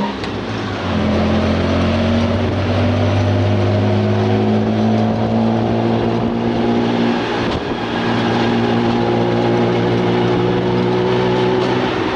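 Tuk-tuk engine heard from on board, pulling steadily, its pitch climbing slowly as it gathers speed, over a constant rush of road and wind noise.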